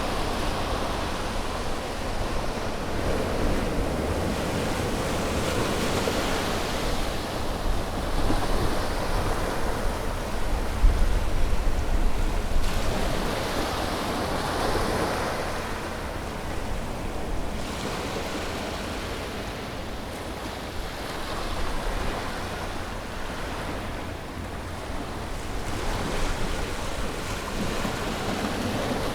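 Ocean waves breaking on a beach: a steady wash of surf that swells and eases every few seconds, with a deeper rumble about ten seconds in, and wind on the microphone.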